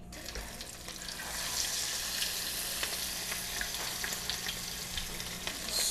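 Fish fillets frying in hot oil in a pan: a steady sizzle with small crackles and pops.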